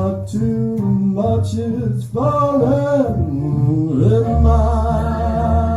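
A man singing a slow ballad over backing music, drawing out long held notes that waver with vibrato near the end of the song.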